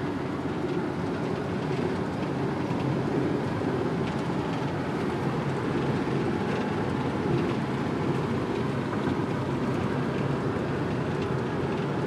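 Steady road noise of a vehicle driving at highway speed, heard from inside the cabin: an even rumble of tyres and engine.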